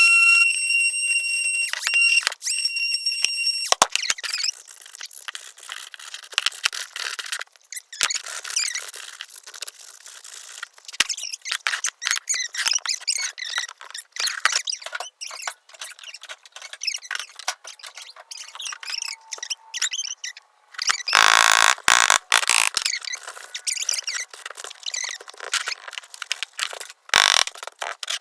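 Sandpaper rubbed by hand along the cut edges of a wooden cutout, an irregular scratchy rasping made of many short strokes. A high steady squeal sounds for the first few seconds and stops, and a louder rushing burst of about two seconds comes near the end.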